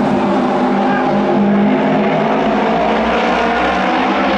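Japanese auto race motorcycles, 600 cc twin-cylinder racing engines, running together at high revs as the pack laps the oval, blending into one loud, steady drone.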